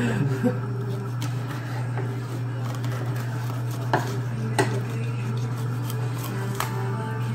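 Knives knocking and scraping on wooden cutting boards as fish are filleted, a handful of sharp knocks with the loudest about four seconds in, over a steady low hum.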